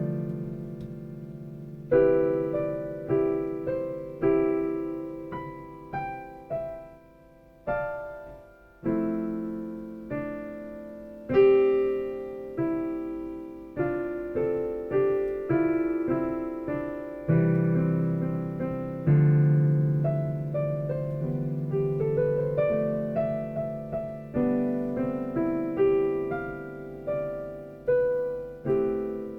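Solo piano music, slow chords and melody notes struck one at a time and left to ring and fade.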